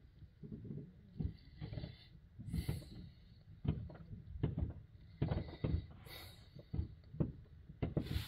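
Fireworks going off out of frame: an irregular string of pops and thumps, several a second at times, with short hissing bursts about two and a half seconds in, around six seconds in and at the end.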